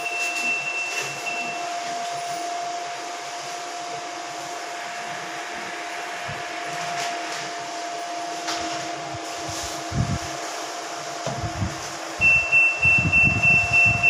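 IFB washing machine's control-board buzzer sounding one continuous high beep that cuts off about two seconds in, leaving a steady hum. Near the end the continuous beep starts again, along with a louder low pulsing about two or three times a second. The nonstop beep is the fault sign of a control board (PCB) that is not working.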